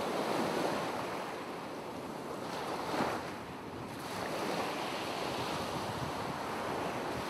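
Ocean waves washing as a steady rushing noise, swelling briefly about three seconds in.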